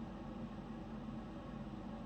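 Steady background hiss with a low hum, no sneeze or sniff standing out: room tone.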